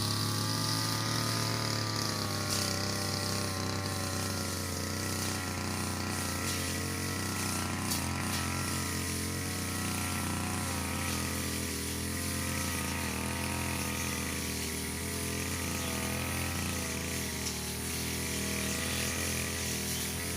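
Petrol brush cutter running steadily at high speed while cutting grass, its engine pitch wavering up and down as the load changes.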